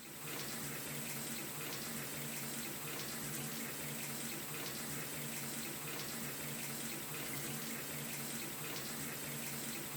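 Water running steadily from a tub fixture into a bathtub, with the water turned on to check a newly installed diverter tub spout for leaks. It fades out near the end.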